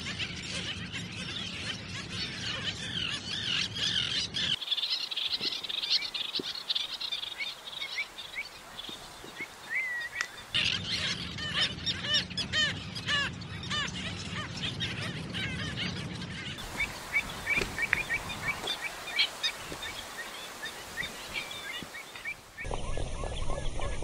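A dense chorus of many wild birds chirping and calling over one another, in quick high notes and short whistles. The recording changes every few seconds, and in some stretches a low rumble runs under the calls.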